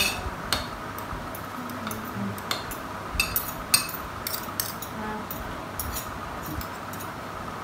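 Spoon clinking and scraping against a plate in quick, irregular taps as someone eats, a couple of sharper clinks about three and a half seconds in, over the steady hum of electric fans.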